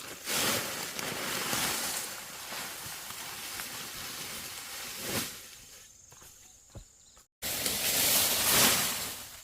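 Dry corn stalks and leaves rustling as they are handled, in two long stretches: the first fades out about two-thirds of the way through, and a louder one follows after a sudden cut.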